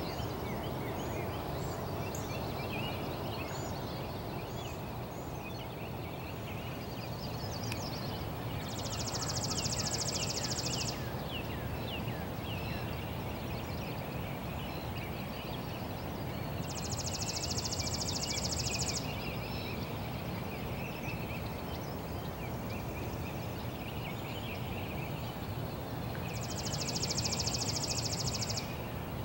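Outdoor birdsong: scattered chirps, and a high, rapid trill about two seconds long that comes three times, roughly eight seconds apart. Under it runs a steady low background rumble.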